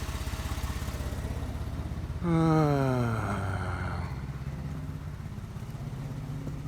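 A 2014 Ford Transit 3.5 V6 runs with a steady pulsing idle. About two seconds in, a loud howl from the drive-belt area starts suddenly and falls in pitch over about a second and a half. The noise comes from a worn aftermarket belt tensioner pulley bearing that has lost its grease.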